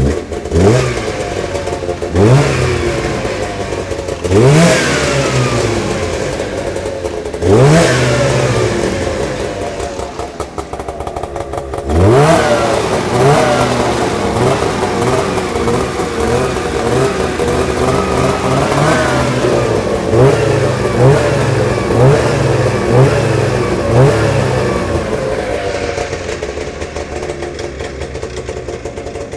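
1998 Arctic Cat Z440's fan-cooled two-stroke engine running and being revved about five times in quick throttle blips, each rising sharply then falling back. It then settles toward idle with a few smaller blips, warming up after a cold start.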